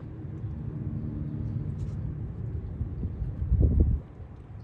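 Low rumble of a vehicle's engine running in the background, with a steady hum for the first couple of seconds. A louder, brief low rumble comes about three and a half seconds in.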